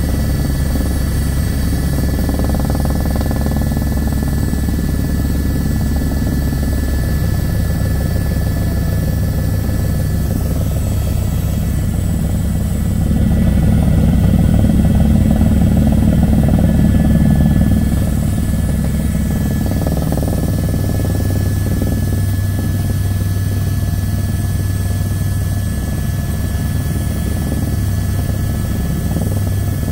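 Helicopter heard from inside the cabin as it descends to land: a steady low rotor and engine rumble with a thin high whine over it, growing louder for a few seconds about midway.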